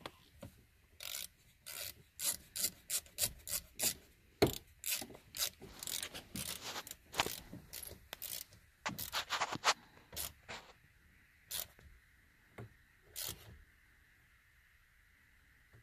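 A hand ratchet is turned in short back-and-forth strokes, about two a second, driving in the screw that holds the multifunction switch at the bottom of the steering column. The clicking strokes stop after about eleven seconds, and a few single strokes follow.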